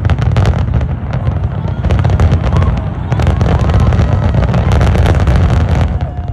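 Fireworks going off in quick succession: many sharp crackles and pops over a heavy low rumble, cutting off suddenly near the end.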